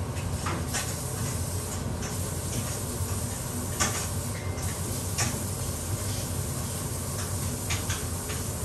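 Thick bopis simmering in a large stainless steel stockpot: irregular pops of bubbles bursting over a steady low hum and hiss.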